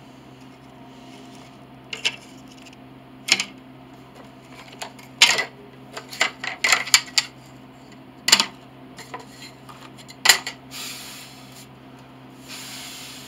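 Wooden pieces being handled and set down on a wooden workbench: a series of sharp knocks and clacks, several in quick succession around the middle, then twice near the end a short sliding, rubbing sound of wood drawn across the bench.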